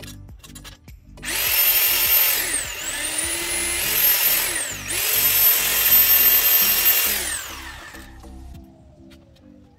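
Corded electric drill boring into a wall: the motor starts about a second in and runs for about six seconds, its pitch dipping twice, then winds down near the end.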